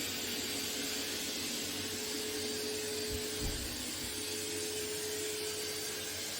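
eufy X10 Pro Omni robot vacuum running: a steady whirring hiss with a steady mid-pitched hum, and a brief low bump about halfway through.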